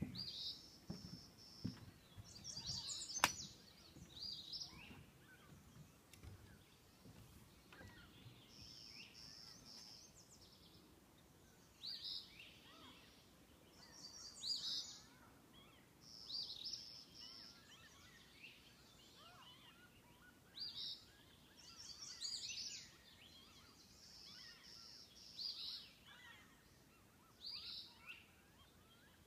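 Songbird singing the same short high phrase again and again, a held note followed by quick falling notes, every two to three seconds, over a quiet outdoor background. A single sharp click sounds about three seconds in.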